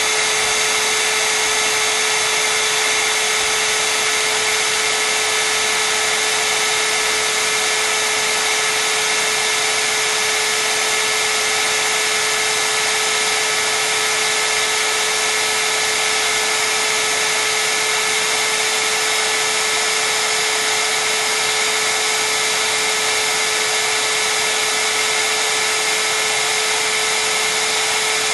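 Steady whir of a motor-driven blower with a constant hum, unchanging throughout.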